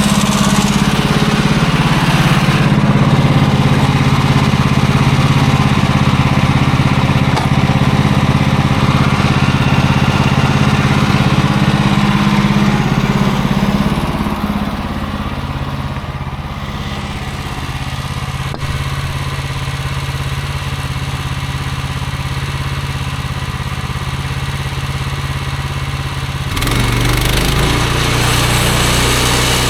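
Gas engine of a portable bandsaw sawmill running steadily as the mill makes a cut through a log. The engine note drops in pitch and loudness about halfway through and comes back up near the end.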